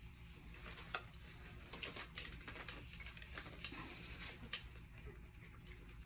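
Faint rustling and scattered light clicks and taps of someone in leg braces pushing up to stand on an aluminium walker, with a sharper click about a second in, over a low steady room hum.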